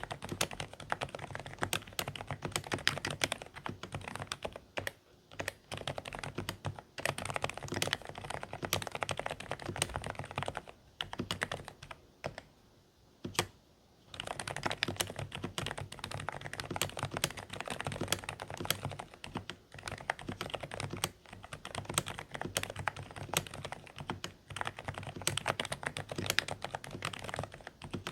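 Continuous fast typing on a Dareu A104 Pro mechanical keyboard with silent beige switches: quiet, somewhat muffled keystrokes. The typing stops for about two seconds around the middle.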